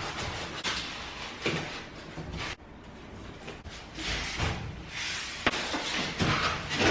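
A flat-pack kitchen cabinet being unboxed: cardboard and boards shifted and handled, with scattered knocks and thuds.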